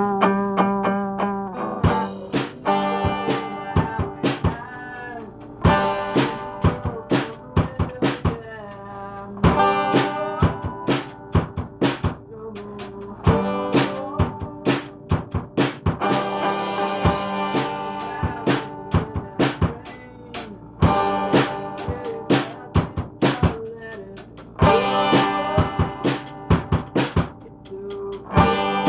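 Band music with a drum kit keeping a steady beat under sustained pitched instrument notes.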